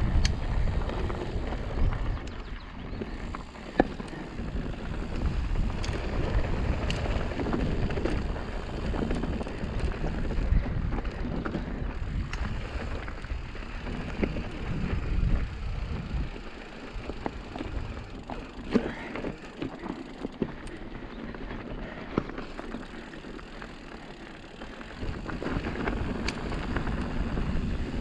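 Mountain bike rolling down dusty, rocky singletrack: tyres crunching over dirt and loose stones, with frequent sharp rattles and clicks from the bike and wind on the microphone. It runs quieter for several seconds past the middle, then picks up again near the end.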